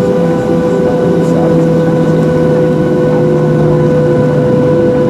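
Boeing 737-700's CFM56-7B jet engines heard from inside the cabin: a loud, steady drone with several steady whining tones over a low rumble.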